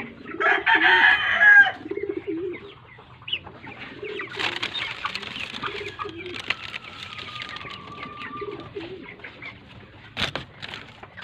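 A flock of broiler chickens making low, repeated soft clucks and calls, with a louder burst of higher calling in the first two seconds. A single sharp knock near the end.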